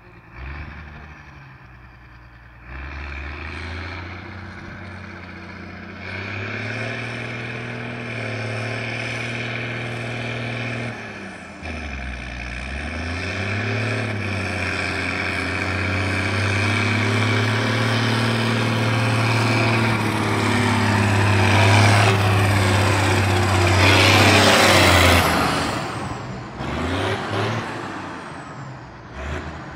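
Zetor 16145 tractor's six-cylinder turbo diesel, its silencer swapped for a straight pipe, running as the tractor drives closer, growing steadily louder. Its note drops briefly about twelve seconds in, then climbs to its loudest near the end with a loud rushing hiss, after which the engine pitch falls away.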